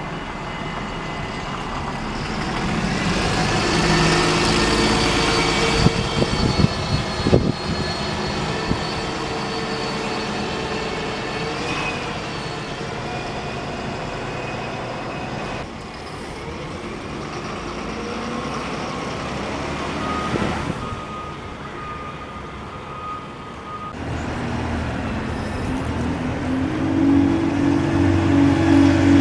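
Bus engines. First a Stagecoach double-decker bus pulls away round the bend, its engine rising with a high whine and a few knocks. Near the end a single-deck bus passes close by, louder and lower.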